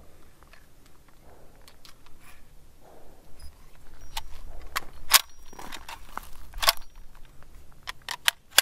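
Sharp metallic clicks and clacks from a Bushmaster Assault Rifle's action and trigger as a live round in the chamber fails to fire: a misfire, with no shot. The three loudest clicks come about five, six and a half, and eight and a half seconds in.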